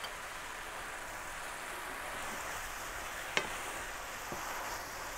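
Cubes of meat sizzling steadily in butter in a stainless steel frying pan as they brown, stirred with a wooden spatula, with one sharp click about three and a half seconds in.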